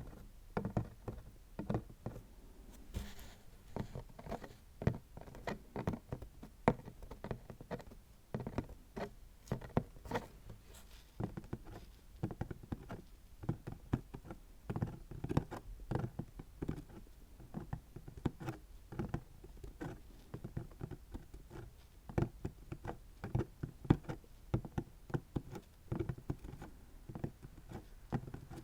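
ASMR tapping: quick, irregular runs of light taps, several a second, with no pause.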